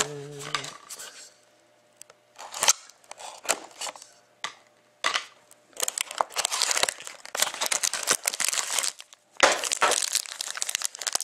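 A cardboard hockey card box being opened and a foil card pack torn open by hand: scattered crackles and tears at first, then dense crinkling and tearing of the foil wrapper through the second half.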